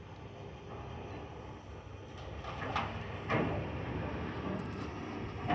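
Excavator engine rumbling during a house demolition, with several sharp knocks and crashes from about halfway through as the machine hits the structure, heard muffled through a window from indoors.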